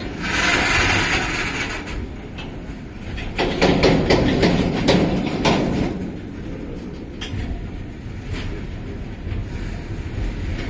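Long tanker freight train rolling slowly past, its wheels clacking over rail joints in quick clusters, loudest about three and a half to six seconds in, over a steady low rumble. A hiss sounds in the first second or so.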